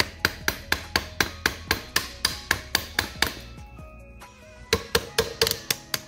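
Plastic-headed mallet tapping repeatedly on a pin inside a Hyundai Tiburon 6-speed transaxle to drive it out. The blows come about four a second for some three seconds, stop briefly, then resume in a quicker run of about six near the end.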